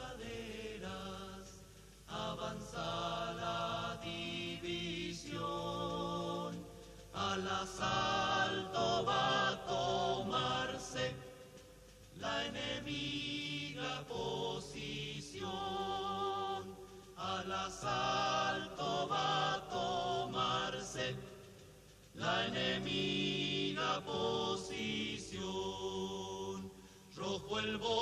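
Vocal music: a group of voices singing or chanting in held phrases a few seconds long, with short breaks between phrases.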